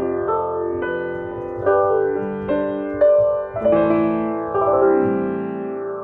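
Sampled piano chords from the Pianoverse software instrument, played through its lo-fi effect. The treble opens and dulls in regular sweeps as the effect's bandwidth is modulated.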